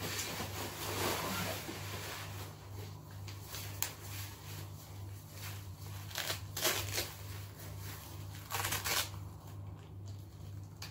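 An 18 kg weighted vest being pulled on and adjusted: fabric rustling and crinkling, with a few short tearing bursts as its straps are fastened, over a steady low hum.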